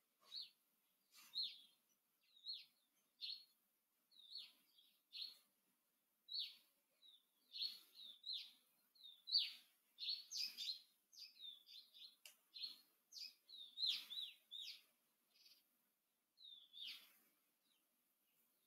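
Small birds chirping faintly: short, high chirps, one or a few at a time, coming every half second or so and busiest around the middle.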